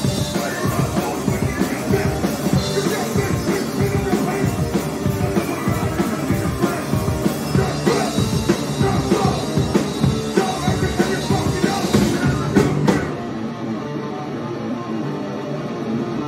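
Live rock band playing, with electric guitar and drum kit. About thirteen seconds in the band drops back to a quieter, thinner passage.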